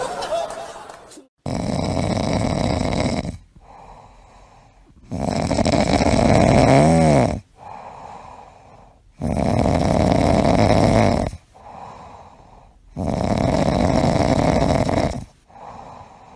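Loud snoring from a sleeping animal: four long, rasping snores about every four seconds, with quieter breaths in between. One snore carries a wavering whistle.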